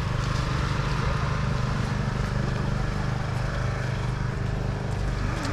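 A steady, low engine-like drone runs throughout, with a faint murmur of voices over it.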